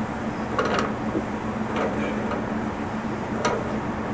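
A steady low hum with three short metallic clicks, about half a second, two seconds and three and a half seconds in, as black iron gas pipe and fittings are handled and threaded together.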